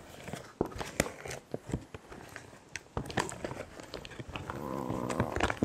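A spoon stirring rehydrating beef and pasta inside a foil-lined freeze-dried meal pouch: irregular clicks and scrapes with crinkling of the pouch. A short low hum comes near the end.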